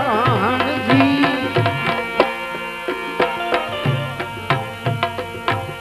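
Live Gujarati bhajan. A singer ends a sung line on a wavering note in the first second, then tabla strokes carry on over a steady drone of held notes.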